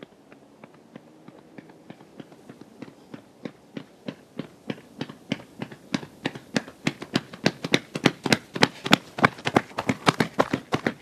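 Running footsteps of trail runners' shoes striking a concrete road in a quick, steady rhythm, faint at first and growing louder as the runners approach and pass close by.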